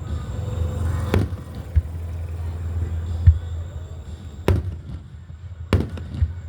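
Aerial fireworks shells bursting: about six sharp booms over a steady low rumble, the loudest a little after halfway.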